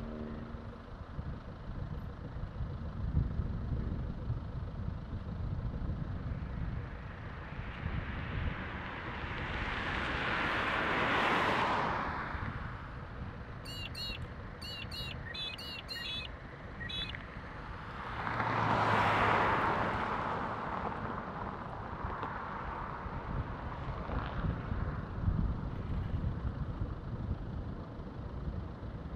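Outdoor airfield background: a steady low rumble, with two swells of passing-vehicle noise that rise and fall, about ten and nineteen seconds in. A bird chirps several times between the two swells.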